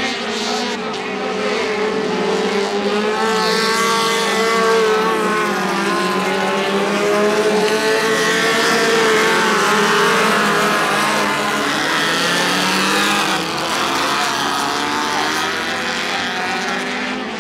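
A pack of small speedway race cars running together on a dirt oval, several engines revving and changing pitch at once. The sound swells to its loudest in the middle as the pack passes, then eases off a little.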